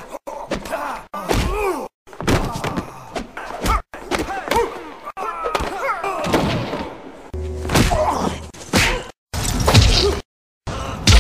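Fight sounds: a quick run of thumps and whacks mixed with gruff cries that bend up and down in pitch, cut off abruptly to silence several times.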